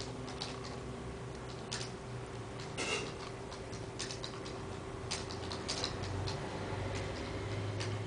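Motorized rotating display stand turning: a steady low hum with irregular light ticks and clicks.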